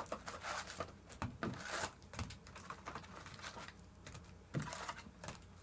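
A baseball card pack being opened by hand: the wrapper torn and crinkling, then the cards flicked through, a run of small irregular clicks and rustles.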